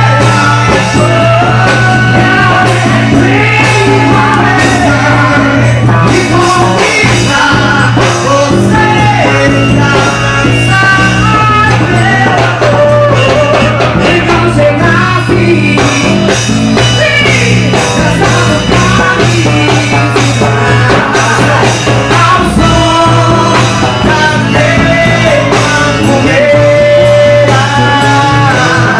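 Loud music with a shifting melody line over a steady bass.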